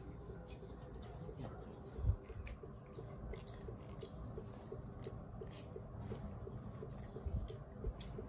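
Quiet room with faint, scattered small clicks and taps, and a faint regular ticking underneath. There is a soft thump about two seconds in and another near the end.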